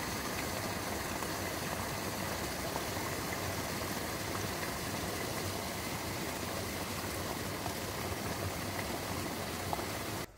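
Steady, even rushing noise with a faint low hum underneath, cutting off suddenly near the end.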